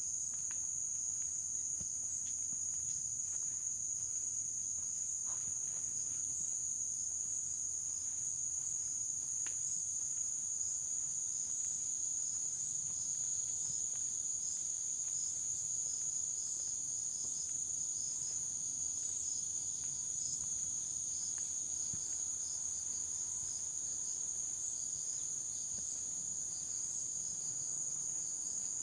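A steady, high-pitched insect chorus with a faint pulsing, and faint footsteps now and then.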